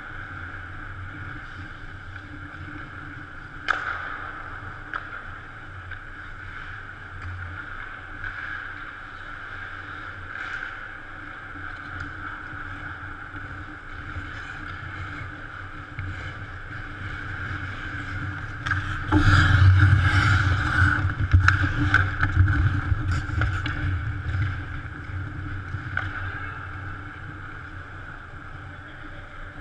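Ice rink sound: a steady hum of the arena with scattered sharp clicks of sticks and puck. About nineteen seconds in, a louder few seconds of skates scraping the ice and knocks close to the net.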